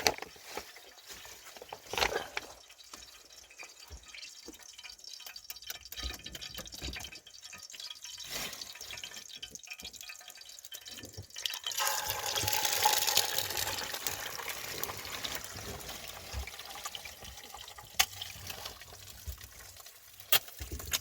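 Water being handled: dripping and splashing with a few sharp knocks, and a louder rush of pouring water about twelve seconds in that lasts a few seconds.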